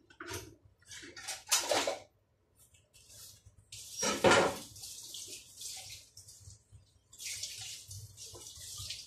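Kitchen tap running into a stainless steel sink as produce is rinsed under it, a steady hiss with a short break partway. Short knocks of items handled at the sink come first, and a louder clatter about four seconds in.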